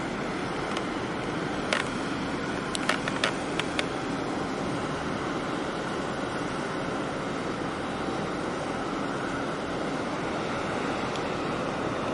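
Steady rushing of harbour water and wind close to the water, with a few sharp ticks about two to four seconds in.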